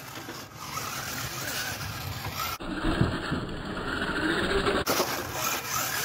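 Kyosho Fazer MK2 electric RC car driving on rough asphalt: a motor whine rising and falling with speed over a steady rush of tyre noise. For about two seconds in the middle the sound turns duller and lower.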